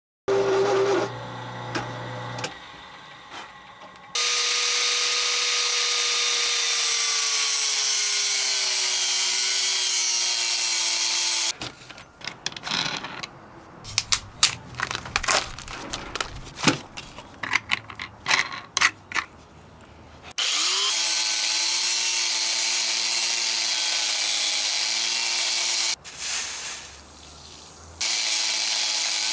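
Angle grinder running in long steady spells, a held whine that slowly sinks in pitch, cutting into a steel bar with a thin cutoff wheel. In the middle come several seconds of scattered clicks and knocks as a 4-inch cutoff wheel is handled and fitted.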